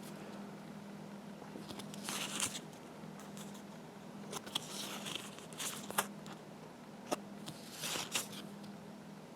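Faint rustling and a few light clicks as board game pieces and their packaging are handled, over a low steady hum.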